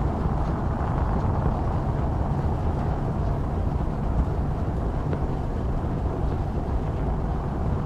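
Space shuttle launch: the rocket engines make a steady, deep rumble with no breaks.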